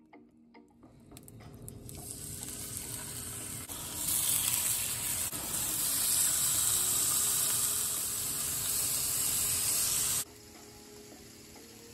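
Food sizzling in a frying pan: a steady hiss that builds over the first few seconds and then cuts off abruptly near the end.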